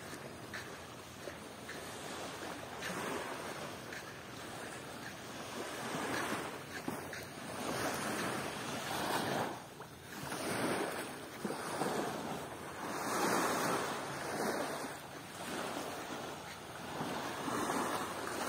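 Water washing at the shore, with wind on the microphone: a rushing noise that swells and fades every second or two.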